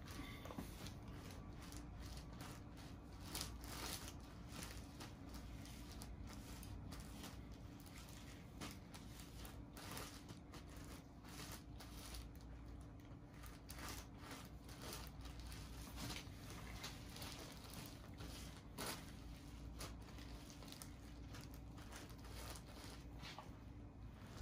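Faint handling noise: a plastic sheet crinkling and soft squishes as gloved hands work dye through wet hair bundles, in many short scattered rustles and clicks over a faint steady low hum.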